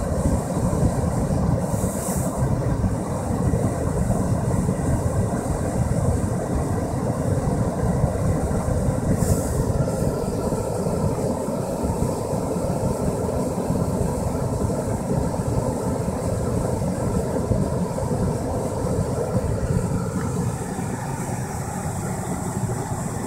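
Car heater blower fan running on full, a steady rush of air inside the car cabin.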